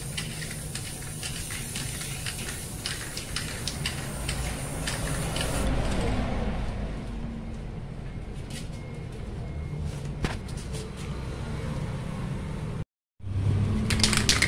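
Toyota Revo pickup's engine idling steadily, with light clicks over it in the first few seconds. The sound breaks off abruptly near the end.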